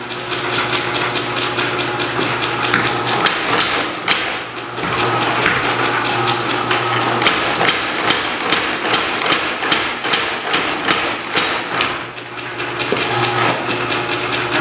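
Little Giant 50 lb mechanical power hammer running, its ram striking the anvil over and over at about two blows a second, over the steady hum of its drive motor.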